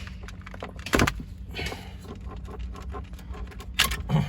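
Plastic clicks and knocks from a car's dashboard climate control unit and its wiring connectors being handled, with two sharp, loud clacks about a second in and near the end.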